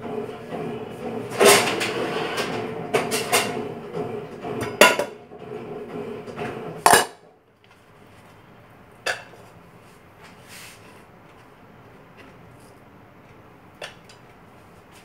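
Kitchen cookware and utensils being handled: pots, pans and cutlery clatter and clink, with several sharp knocks. After about seven seconds it goes quiet except for two single clicks.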